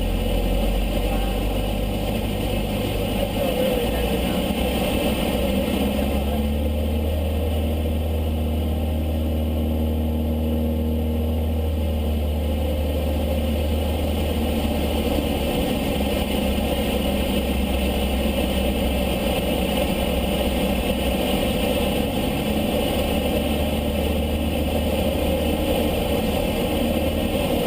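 Cessna 152's four-cylinder Lycoming piston engine and propeller running steadily, a continuous drone whose low hum shifts about six seconds in and again around the middle.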